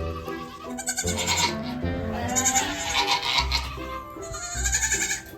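Background music with a steady bass beat and a stepping melody.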